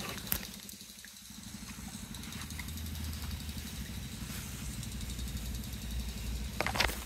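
A motor engine running steadily with a low, pulsing hum that grows louder through the middle, with a few light clicks.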